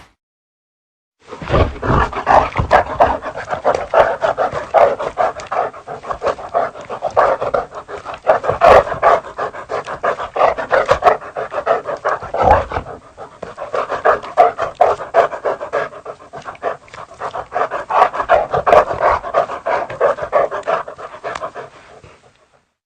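A dog panting rapidly and continuously, quick breathy in-and-out puffs, used as a creature's breathing sound effect.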